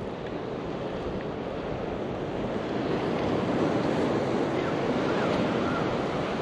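Ocean surf breaking and washing up the beach, with wind rushing on the microphone; the wash grows a little louder about halfway through.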